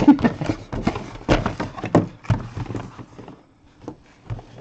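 Cardboard trading-card boxes being handled: the Topps Premier Gold box's lid flaps and its inner boxes are lifted out and set down, making a run of irregular taps, knocks and cardboard rustles.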